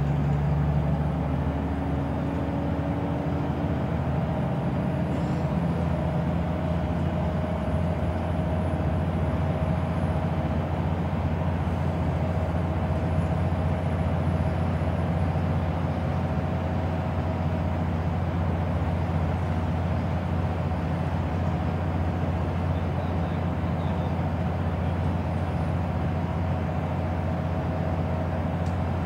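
Scania Wright Solar single-deck bus heard from inside the saloon at a steady cruise: a continuous low engine drone with road and tyre noise and a faint steady whine.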